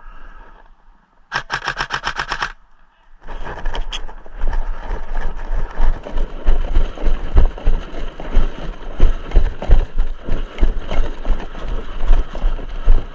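Airsoft gun firing a full-auto burst of rapid, evenly spaced cracks lasting just over a second. About three seconds in, loud, continuous rustling with irregular low thumps starts up and carries on.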